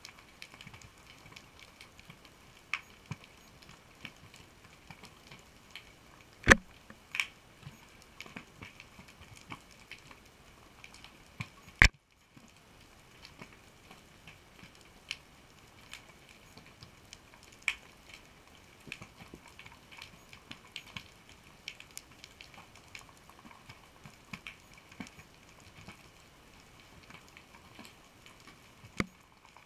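Underwater reef crackle picked up through a GoPro housing: a steady fizz of small irregular clicks and snaps, with a few louder sharp clicks, one about six seconds in and another near the middle, where the sound briefly drops out.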